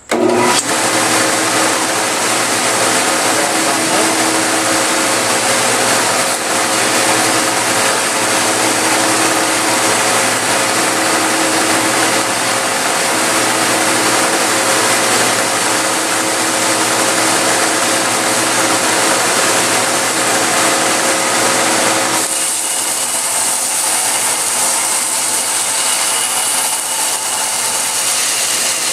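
Shop-built 2x72 belt grinder, driven by a 2 hp single-phase induction motor, switched on and running steadily at its slowest pulley speed. About 22 seconds in, the low hum drops away and a higher whine comes in.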